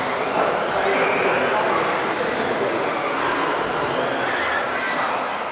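Several radio-controlled off-road racing cars with electric motors whining as they race around a track, the pitch rising and falling as they speed up and slow down, over a steady background haze.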